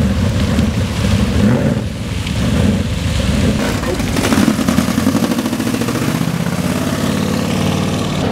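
Engines and exhausts of classic American cars cruising past at low speed, with a low pulsing exhaust note; one car passes close about four seconds in, then pulls away.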